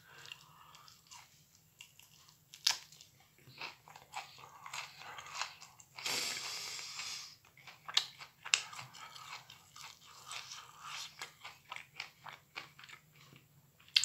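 A person biting off and chewing mouthfuls of microwaved broccoli, with many short, irregular crunches, a few of them louder. About six seconds in there is a louder hiss-like rush of noise lasting just over a second.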